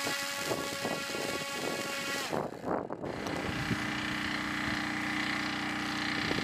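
Stalker drone's propeller motor running steadily with a high whine; about two and a half seconds in it changes to a lower, steady propeller hum with some wind on the microphone.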